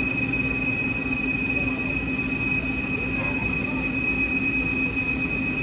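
DMG Gildemeister CTX 620 Linear CNC lathe running, a steady high-pitched whine over a low hum and hiss.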